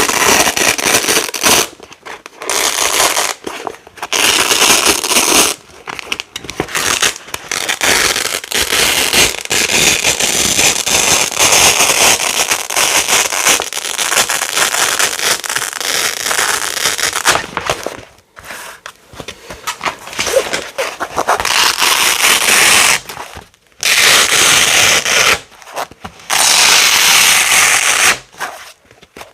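Heavy-duty hook-and-loop (Velcro) fastener with large hooks being peeled apart again and again, a run of loud crunchy crackling rips. Some rips last only a second or two and one runs on unbroken for about ten seconds, with short pauses between them.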